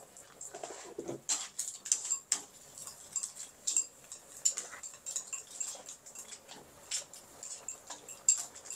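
Stir-frying water spinach in a pan: a spatula makes irregular clinks and scrapes against the metal, over a steady sizzle.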